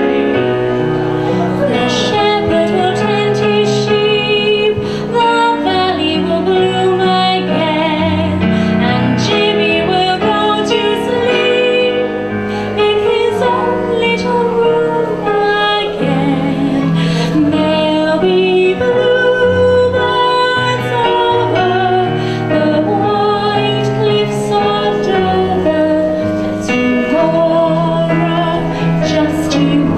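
A woman singing with vibrato into a microphone, accompanied by an electronic keyboard playing sustained chords.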